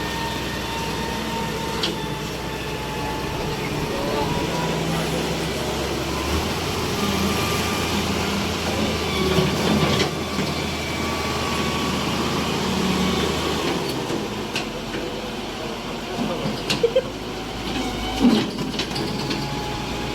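Engine of a road-cutting machine running steadily, with scattered knocks and a couple of sharper clanks near the end.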